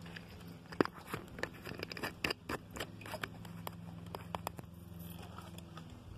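Irregular sharp clicks, crunches and scrapes of handling, over a steady low hum.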